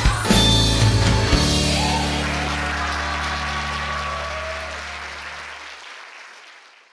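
Christmas song ending: the music stops on a final low chord that is held and fades out over about five seconds.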